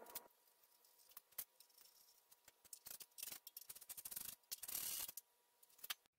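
Faint scraping and scattered light clicks of a sheet-metal exhaust manifold heat shield being handled and fitted on the engine, with a longer scratchy stretch about three to five seconds in.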